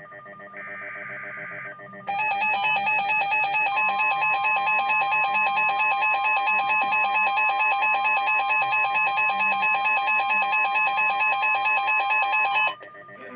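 A short burst of EAS digital header data, a buzzy warble, then the NOAA Weather Radio warning alarm tone: one loud steady tone held for about ten seconds that cuts off sharply. It is the attention signal that announces a new warning message.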